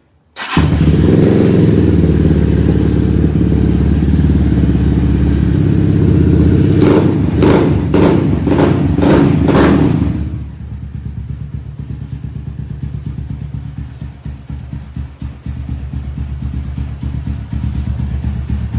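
Gilera SMX 200 Adventure's single-cylinder four-stroke engine starting up about half a second in and running fast. About five quick throttle blips come a little after halfway, then it settles to a lower, lumpy idle.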